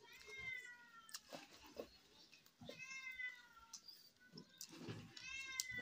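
A cat meowing three times, a couple of seconds apart, each call falling slightly in pitch. Faint clicks come between the calls.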